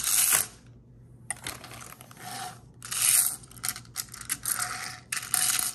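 Small plastic Mater tow-truck Happy Meal toy rolled back and forth by hand across a hard countertop, its wheels and plastic works rattling and rasping in about five short strokes.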